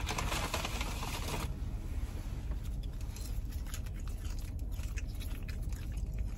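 Rustling for the first second or so, then scattered small clicks and scrapes as a ketchup packet is handled and wiped clean of sanitizer, over a low steady hum.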